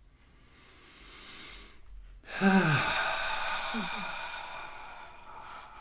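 A long audible breath in, then a loud breathy sigh out about two and a half seconds in, the voice falling in pitch as it trails away.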